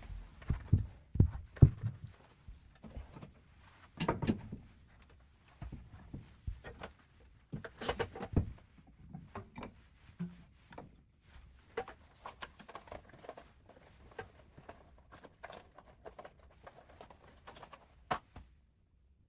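Irregular knocks, bumps and clatter of objects being handled and set down during cleaning, in a small room. It stops about a second before the end.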